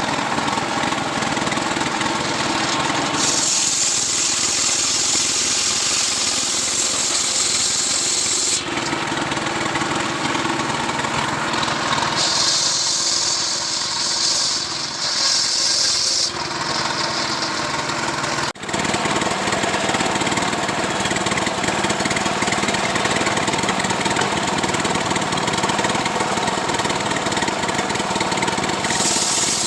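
Two-stroke Stihl chainsaw running hard, cutting lengthwise through a coconut-palm trunk to square it into a beam. The sound shifts several times as the cut goes on, with a brief sharp drop about two-thirds of the way through.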